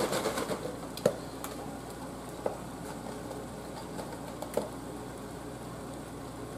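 Cabbage greens with bacon sizzling quietly in a hot pan, with a few light clicks as a carton of chicken broth is handled and uncapped.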